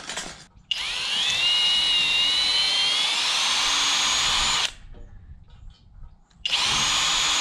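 Power drill run twice in long bursts, driving HeadLOK structural wood screws. Its whine rises in pitch during each run, and the second run starts near the end after a short pause.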